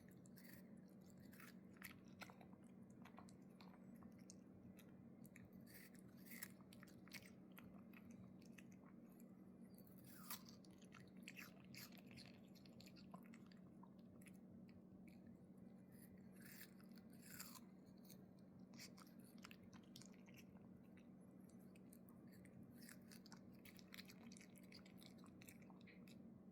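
A dog chewing, with irregular small crunches and clicks of its teeth, over a faint steady hum.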